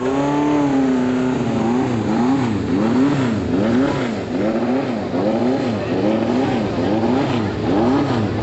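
Formula SAE race car engine revving: its pitch holds steady for about a second, then rises and falls over and over, roughly every two-thirds of a second.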